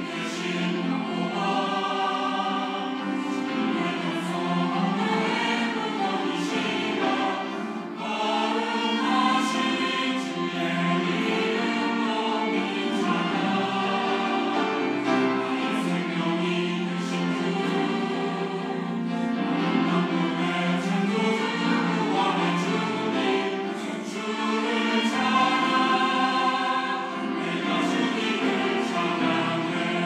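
Mixed church choir of women's and men's voices singing a sacred anthem together, phrase by phrase with brief dips between phrases.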